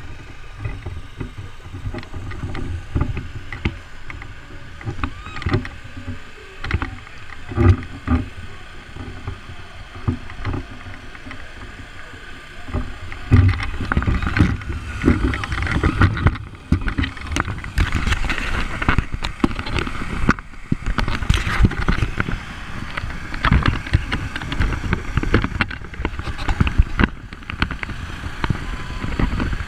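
Rumbling wind and handling noise on a GoPro's microphone, with repeated knocks and thumps as the wearer climbs a wooden obstacle wall. About 13 seconds in it grows louder and busier as he goes down the wet obstacle slide.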